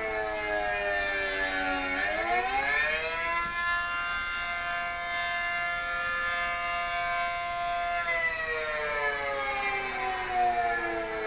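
P-15 civil defense siren sounding a wail. Its pitch falls, climbs sharply about two seconds in, holds steady for about four seconds, then falls away again near the end.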